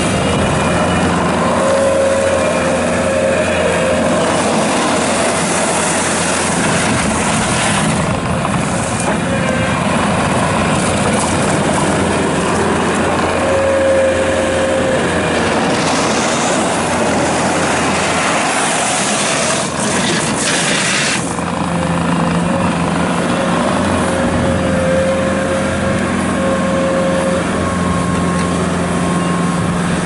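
Bobcat T650 rubber-track skid steer loader running and driving on gravel: a steady diesel engine hum with a whine that comes and goes. There are rushes of gravel noise from the rubber tracks as it turns, about 8 seconds in and again for several seconds past the middle.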